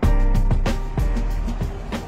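Background music with a heavy bass that comes in sharply at the start and a steady drum beat.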